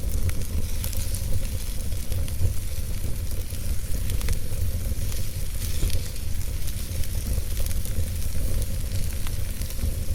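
Wood logs burning in a fireplace: a steady low rumble and hiss from the flames, with frequent small crackles and pops.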